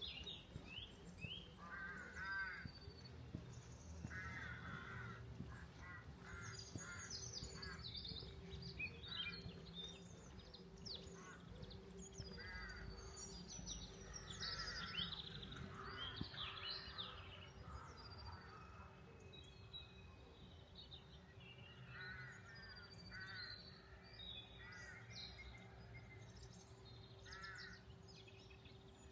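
Crows cawing in short repeated calls, with small birds chirping and twittering among them, busiest in the first half. A faint steady hum runs underneath.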